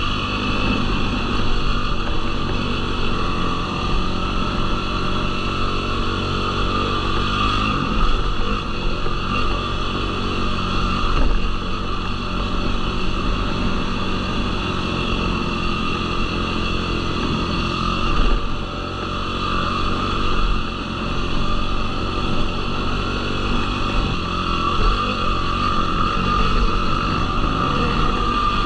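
Yamaha YFZ450R sport quad's single-cylinder four-stroke engine running continuously while being ridden off-road, with small rises and dips in engine speed.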